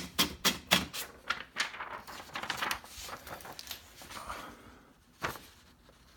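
A 1969 Hermes Rocket portable typewriter's platen is rolled to pull the sheet out, giving rapid even ratchet clicks, about four a second, for the first second. Then the paper rustles as it slides free of the roller and fades, and a single sharp click comes about five seconds in.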